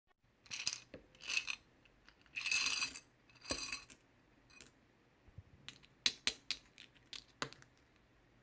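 Sky-blue slime with heart toppings being played with by hand. There are four crackly squishes in the first four seconds, then a quick run of sharp clicks and pops.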